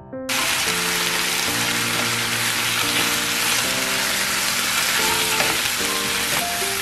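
Sliced beef sizzling steadily in a hot frying pan while it is stirred and tossed with wooden spatulas. The sizzle starts abruptly just after the beginning, with soft piano music underneath.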